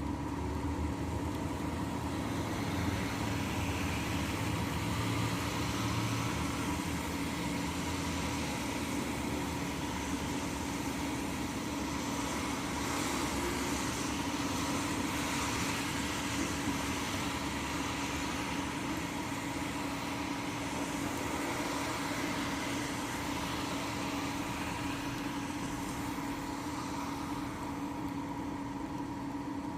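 Steady rain falling, a constant hiss with a steady mechanical hum underneath it.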